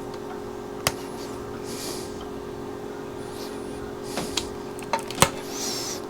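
Light clicks and rustles of hands handling wire and small parts at a workbench, over a steady background hum. There is one click about a second in and a cluster of sharper clicks near the end, with faint high squeaky chirps now and then.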